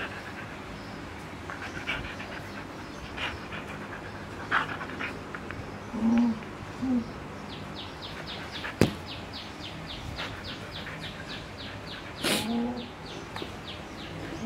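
A Siberian husky making short, low vocal sounds up close: two brief ones about six and seven seconds in, and a louder one near the end. Between them come soft sniffing noises, one sharp click, and a quick, even run of high ticks lasting a few seconds.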